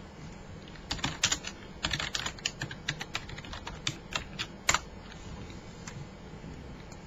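A quick, irregular run of sharp clicks for about four seconds, starting about a second in, then only a low steady background.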